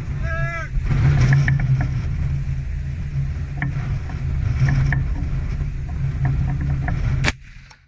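A steady low mechanical hum, like an engine running, with a few sharp clicks over it, cut off abruptly near the end.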